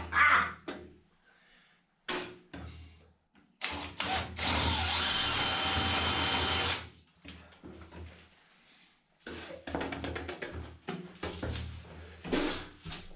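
A DeWalt cordless drill/driver runs steadily for about three seconds near the middle. Short knocks and clicks come before and after it.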